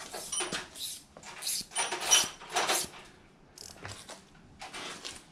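Hand tools and metal parts clattering and scraping as they are handled, in a run of short bursts, some with a bright metallic clink.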